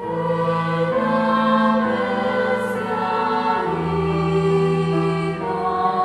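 Slow stage-musical music: a choir sings long, held chords over sustained bass notes, with the harmony shifting every second or two.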